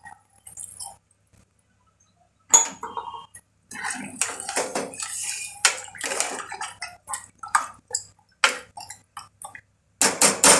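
A spoon stirring chicken curry in a metal pressure cooker pot, giving irregular scrapes and clinks against the pot's side along with liquid sloshing. A few sharper, louder clinks come near the end.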